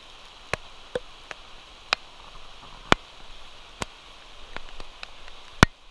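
Light rain: a steady hiss with about nine sharp, irregular ticks of drops striking close to the microphone, the loudest near the end.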